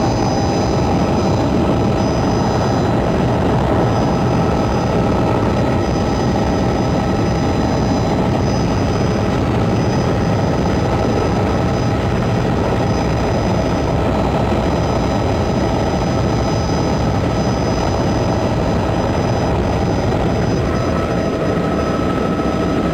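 Helicopter in flight heard from aboard: a loud, steady drone of rotor and engine with thin steady whining tones over it.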